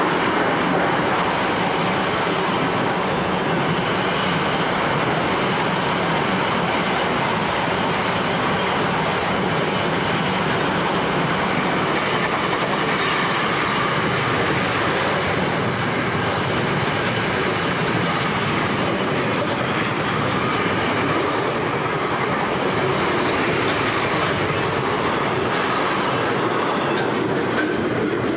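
Freight wagons loaded with shipping containers rolling past close by: a steady, loud noise of steel wheels on the rails with clickety-clack.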